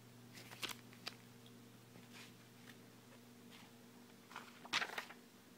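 Faint handling noises from a paper-covered altered notebook being held and shown: a few soft rustles and light taps, the loudest one near the end, over a steady low hum.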